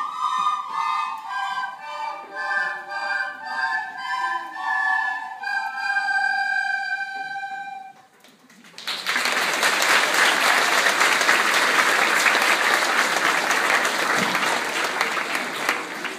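A children's choir singing, closing on a held note about eight seconds in. After a brief pause the audience applauds, dying down near the end.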